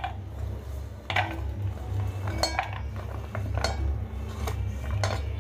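Slices of snake gourd sliding off a ceramic plate and dropping into a stainless steel bowl, with several sharp clinks of plate and pieces against the steel, over a steady low hum.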